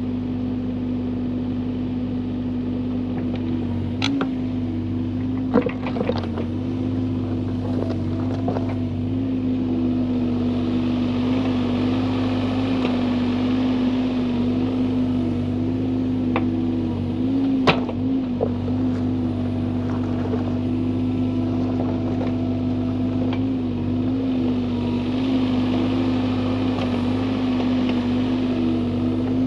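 Bobcat E35 mini excavator's diesel engine running steadily, with a few sharp knocks and clanks, the loudest about 18 seconds in.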